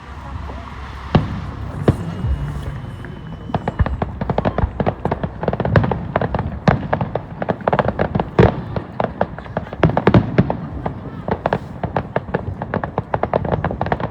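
Fireworks going off: a rapid, irregular string of crackling pops and bangs that grows dense a few seconds in and keeps going.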